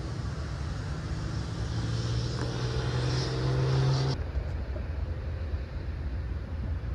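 Outdoor background with a low steady rumble and a steady engine hum that holds one pitch from about two seconds in. The hum cuts off abruptly about four seconds in, leaving only the low rumble.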